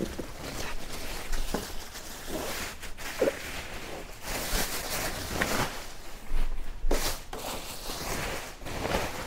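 Irregular rustling and light knocks from handling the packaging and parts during setup.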